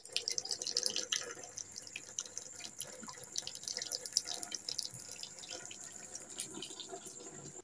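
Thin stream of water running from a tap and splashing onto a sink ledge, an irregular patter of small splashes and drips over a steady trickle.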